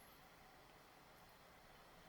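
Near silence: faint, steady room tone with a light hiss.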